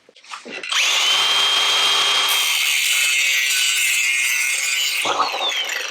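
Power tool cutting thin sheet steel (a door-skin patch piece): a steady, loud, high-pitched run that starts under a second in and stops about five seconds in, followed by a little metal clatter.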